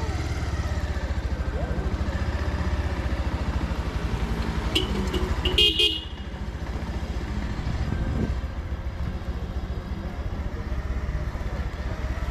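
Motorcycle engine running steadily, heard from a camera mounted on the bike. A horn honks twice about five seconds in, first briefly, then a little longer.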